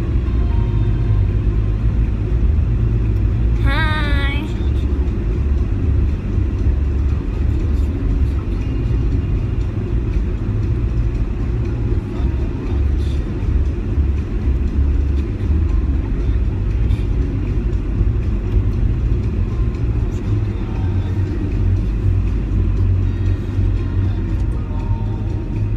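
Steady low rumble of a car in motion, heard from inside the cabin. About four seconds in, a brief warbling pitched sound cuts through.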